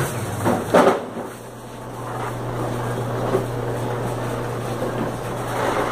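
Small child's shopping cart rattling as it is pushed along a tiled supermarket floor, with one loud clunk just under a second in, over a steady low hum.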